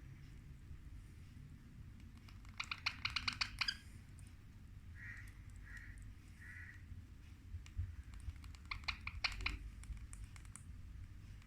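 Baby parrot giving two short bursts of rapid chattering calls, with three soft chirps between them.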